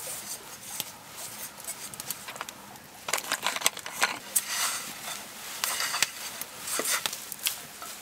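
Hands mixing flour, water and oil into pizza dough in a metal camping pot: irregular scraping, squishing and rustling with clicks against the pot, busier in the second half, along with rustle of jacket sleeves.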